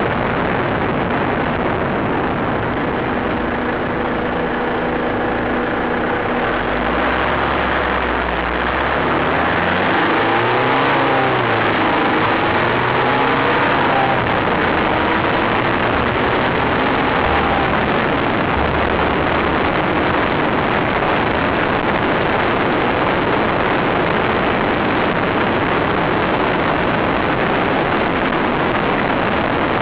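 Vehicle engine and road noise, loud and steady, picked up by a tiny camera's thin microphone; some engine tones shift in pitch around the middle.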